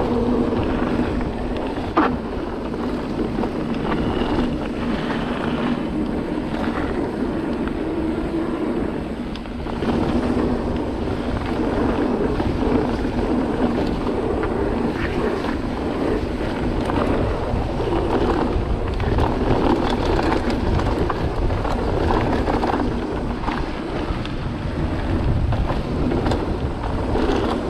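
Cube Stereo 150 TM full-suspension mountain bike riding down a dirt trail: wind buffeting the microphone and tyre rumble, with constant rattling and knocking from the bike over the ground. There is one sharp knock about two seconds in.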